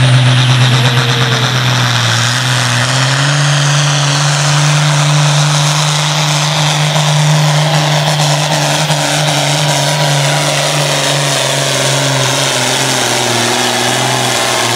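Pulling tractor's engine at full throttle under heavy load as it drags a weight-transfer sled down the track: a loud, steady drone whose pitch climbs slightly over the first few seconds and then holds.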